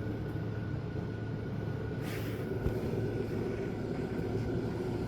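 Steady low background hum with a faint, thin high tone above it; a brief rustle about two seconds in and a soft knock shortly after.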